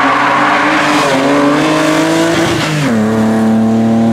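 BMW E30 325i rally car's straight-six engine at high revs under acceleration, its pitch climbing with a brief dip about a second in. Near three seconds in the note drops abruptly and then holds steady.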